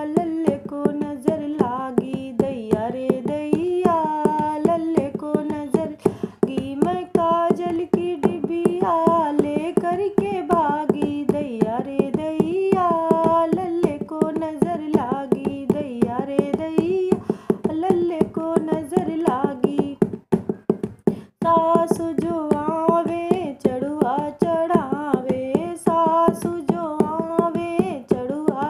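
A woman singing a sohar, a North Indian folk birth song, over a dholak played in a steady rhythm, with a short pause about twenty seconds in.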